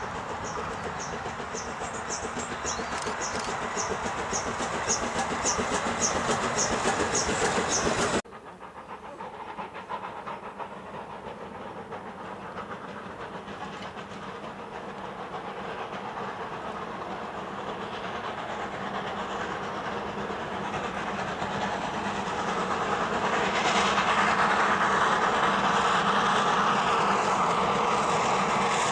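Steam-hauled passenger train passing, its carriage wheels clicking over rail joints about two or three times a second, cut off abruptly about 8 s in. Then a double-headed steam train, GWR 4500-class prairie tank No. 4566 and Manor-class No. 7812 Erlestoke Manor, approaches under heavy smoke, its sound growing louder over the last several seconds.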